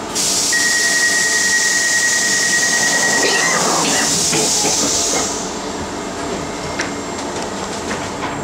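Loud hiss of compressed air on a London Underground D Stock train, starting suddenly and stopping abruptly about five seconds later. A steady high-pitched tone sounds for about three seconds within the hiss. Afterwards the carriage's quieter background noise remains, with a few light clicks.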